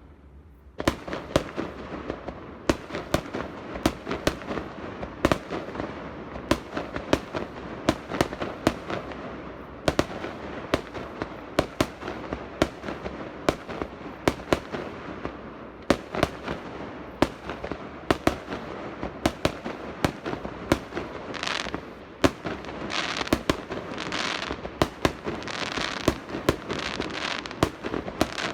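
Fireworks display in a rapid barrage: sharp bangs and cracks come several a second, starting suddenly about a second in. In the last third, hissing bursts of crackle mix with the bangs.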